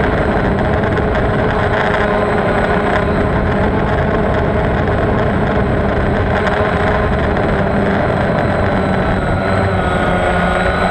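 Motor and propeller of an FPV model aircraft running steadily in flight: a constant hum of several tones over a dense rushing noise, the tones rising a little near the end.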